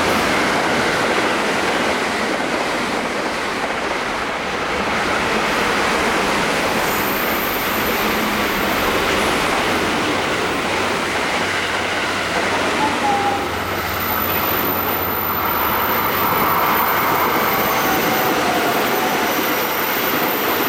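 Electric train running past at speed: a steady rushing noise of wheels on the rails.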